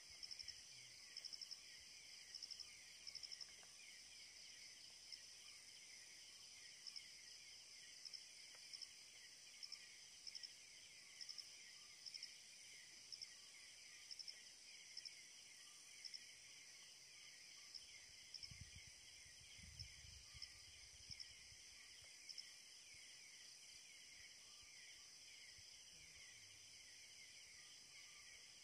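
Faint chorus of night insects: a steady high trilling with a sharper chirp repeating every second or so. A few soft low thumps come about two-thirds of the way through.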